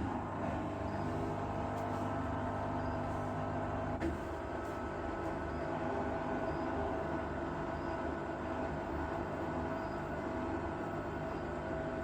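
LG front-loading washing machine running its spin cycle: a steady motor and drum hum with a few held tones. The deepest part of the hum drops a little about four seconds in.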